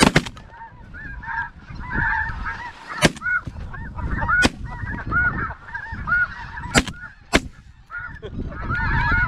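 Shotgun shots from the hunters, about six in all: a quick pair at the very start, then single shots about three, four and a half, seven, and seven and a half seconds in. Between them, snow geese call without a break in high, repeated yelping calls.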